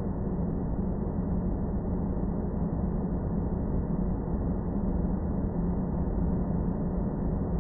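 Sci-fi space-planet ambience sound effect: a steady, dark, low rumbling drone of filtered noise with a humming band in the low range and nothing bright on top, unchanging throughout.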